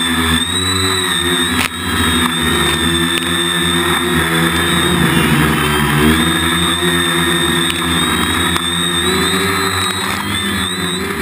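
Waterproof quadcopter's electric motors and propellers whining and humming, the pitch rising and falling as the throttle is worked, with a sharp click about a second and a half in.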